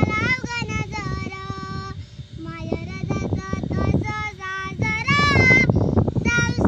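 A young girl singing, holding long notes with pitch glides between phrases.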